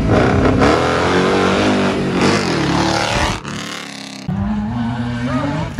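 Off-road 4x4's engine revving hard as it pulls away from the start line, its pitch rising. After a short dip about three and a half seconds in, an engine runs on steadily with a slowly rising tone.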